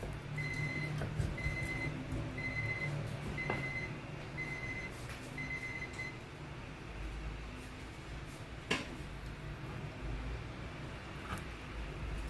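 Electronic beeping from a kitchen appliance: six short, identical high beeps about a second apart, then two sharp knocks later on.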